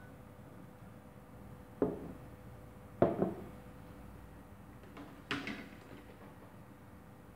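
A few separate clunks and knocks of kitchenware being handled, the loudest about three seconds in: drinking glasses set down on the table and the blender's plastic lid and glass jar lifted off and put down on a metal tray. The blender motor is off.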